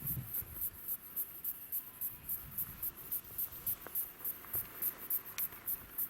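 Insects chirping steadily in a high-pitched, even rhythm of about four pulses a second, with a couple of faint clicks.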